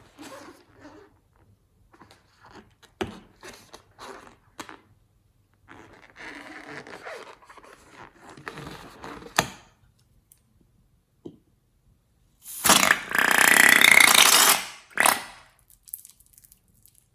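Slime being squished and pressed, giving crackling, popping squelches, then one loud, longer squelch with a faint squeal about three-quarters of the way through.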